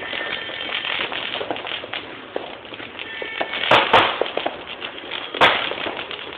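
Firecrackers and fireworks going off: a steady crackle of small reports. Three sharp, louder bangs stand out, two in quick succession about halfway through and one more near the end.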